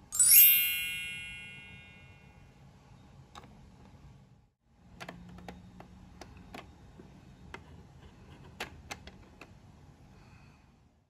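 A small metal steamer lid is set onto the miniature pot with a bright, ringing clink that fades over about two seconds. Later, a series of small sharp clicks as a finger presses the buttons on the toy stove's control panel.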